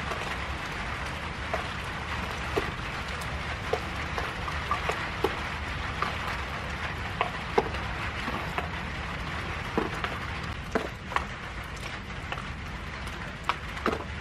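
Heavy rain falling steadily, with frequent sharp drips of large drops landing close by.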